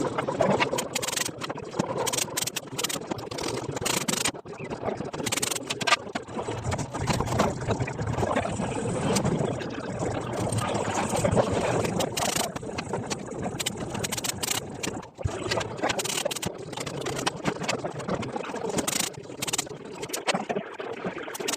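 Workshop noise during cabinet assembly: frequent sharp knocks and clicks over a steady rumbling noise.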